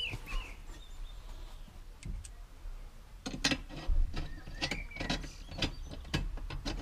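Hard plastic car interior trim at the under-seat drawer frame being handled and worked loose: a quiet stretch, then a run of sharp clicks and knocks starting about three seconds in.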